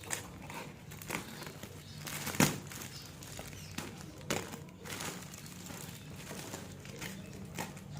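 Clicks and knocks of a mini plastic hamster cage and its packaging being handled, with one sharper knock about two and a half seconds in, over a low steady hum.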